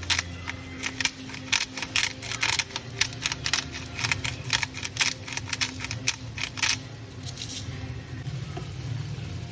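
Kitchen utensil striking a hard surface in an irregular run of sharp clicking taps, about three a second, stopping about seven seconds in, over a low steady hum.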